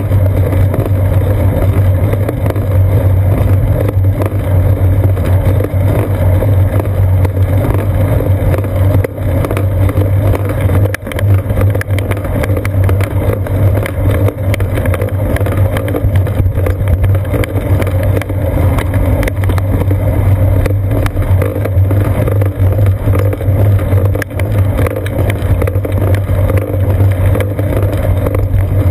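Steady low rumble of wind buffeting and road vibration picked up by a seat-post mounted GoPro Hero 2 in its housing while the bicycle rides along a paved road.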